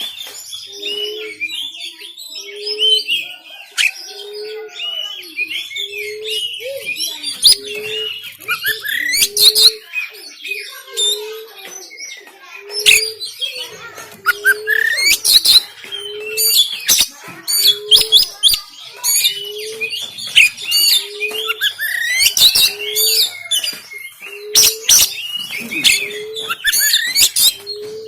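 Oriental magpie-robin (kacer) singing hard: a fast, loud run of rising whistles and sharp, harsh notes. Under it a short low note repeats steadily, about once a second.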